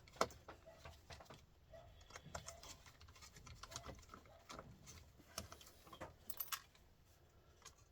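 Faint, scattered light clicks and taps of hand work on small metal and plastic parts: a small screwdriver working tiny screws out of a TV circuit board. A sharper click comes just after the start and a cluster of clicks about two-thirds of the way in.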